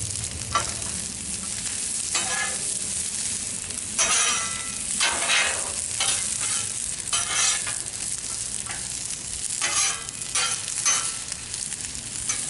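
Onions, carrots and broccoli sizzling in oil on a Blackstone flat-top griddle, with a steady hiss throughout. Metal spatulas scrape the griddle surface and toss the vegetables in about eight short, irregular strokes.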